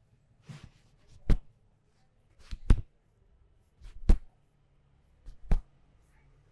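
Massage strikes by hand: four sharp slaps in an even rhythm about a second and a half apart, each led by a lighter tap.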